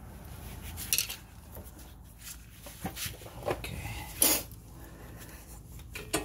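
Metal clinks and knocks from a loosened brake caliper being worked off its rotor and bracket: several separate sharp knocks, the loudest a little past the middle.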